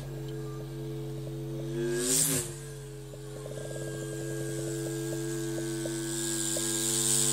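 Steady low buzzing drone with several overtones. Its pitch bends as a whoosh passes about two seconds in, and a high hiss builds up near the end.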